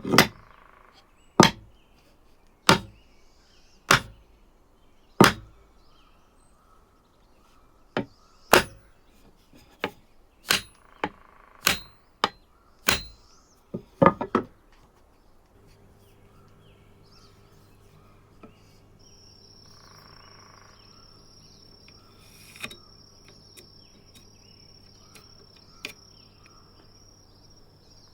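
About fifteen sharp knocks, roughly one a second, a few with a brief metallic ring, stopping about halfway through. After them a steady low electrical hum sets in, joined later by a faint high steady whine.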